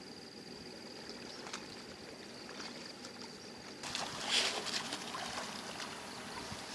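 Water splashing and trickling, with a louder splash about four seconds in; before that a steady thin high-pitched tone.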